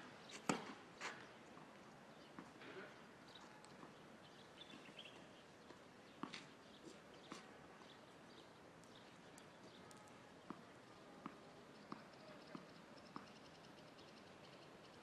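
A few sharp knocks of a tennis ball being struck and bouncing, the loudest about half a second and a second in, then faint scattered clicks over a quiet background.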